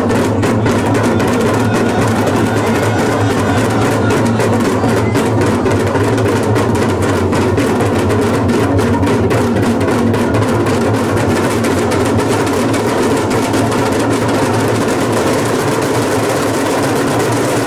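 A group of large damrus, the hourglass-shaped Shiva drums, played together in a fast, continuous roll that stays loud and even throughout.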